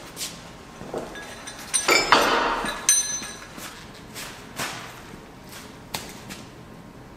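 Metal knocks and clinks, several separate strikes, with a louder clattering jangle of ringing metal about two seconds in.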